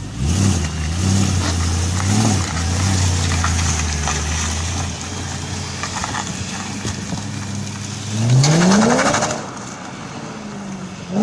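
Car engine running at low revs with a few small rises, then revving up quickly about eight seconds in, with a short loud burst near the end.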